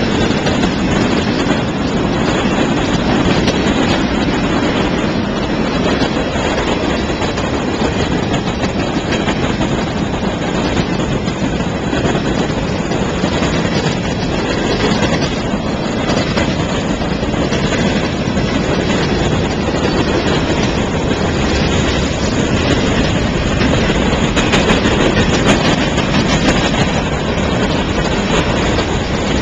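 Freight train cars rolling past at close range: a steady, loud rumble of steel wheels on the rails.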